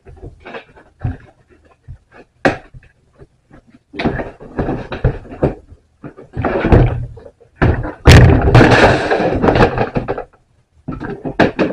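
Hard plastic litter box and its wire grate being handled: a string of knocks and clatters with stretches of scraping and rattling, loudest about eight to ten seconds in.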